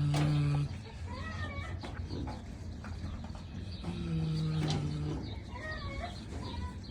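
Kunekune pig snoring in its sleep: long, steady, low-pitched snores, one trailing off about half a second in and another about four seconds in.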